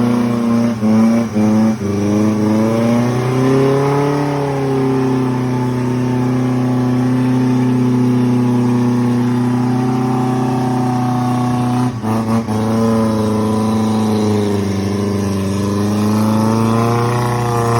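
Off-road vehicle's engine running under load, its revs rising and falling as it works along a rain-soaked track. Revs drop briefly about a second in, again near two seconds, and twice around twelve seconds.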